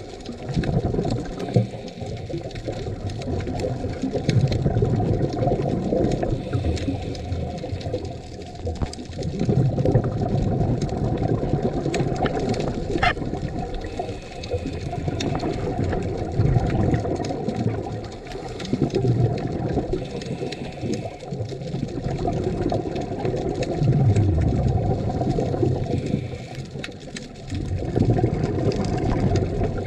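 Scuba regulator breathing heard underwater: bursts of exhaled bubbles swelling and fading every few seconds, low and muffled.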